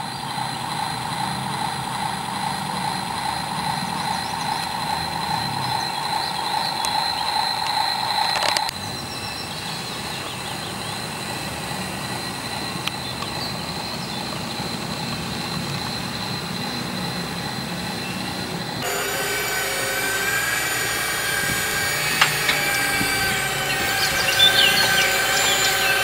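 Electric motors and gearboxes of a Yigong radio-controlled toy excavator whining steadily as it works and drives on its tracks. The pitch and tone change abruptly about a third of the way in and again about two-thirds of the way in.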